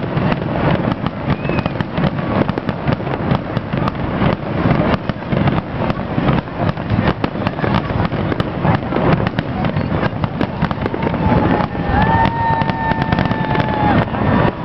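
Fireworks display: a rapid, continuous string of bangs and crackles from aerial shells. A steady whistle sounds for about two seconds near the end.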